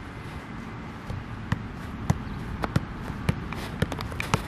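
Soccer ball being juggled and worked with the feet on artificial turf: a series of short, sharp taps of the ball, about two a second, starting about a second in.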